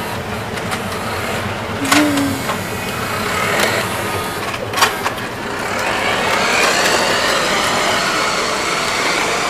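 Remote-control toy car's small electric motor whirring as it drives across a tile floor, with a few sharp clicks along the way. About six seconds in, the motor whine rises in pitch and holds steady.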